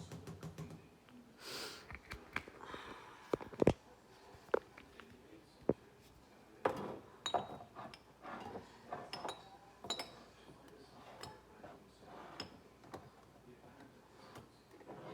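Spice jars and containers handled on a kitchen counter while seasoning a pot of soup: irregular taps, knocks and light glassy clinks, with a few sharper knocks about four to six seconds in and a busy run of clinks around seven to ten seconds in.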